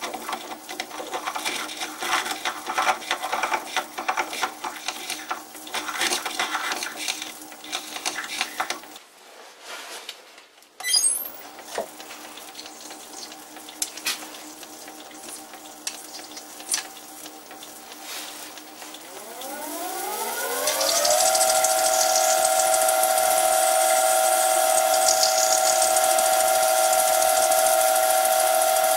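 Metal lathe turning a steel spindle while a blade scrapes paint off its shoulder, an irregular scraping over the machine's steady hum. About two-thirds in, the lathe motor speeds up with a rising whine that settles into a steady high whine, and an abrasive stone hisses against the spinning steel.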